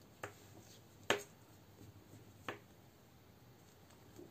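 Knitting needles clicking against each other as stitches are knitted: three short clicks, the second the loudest.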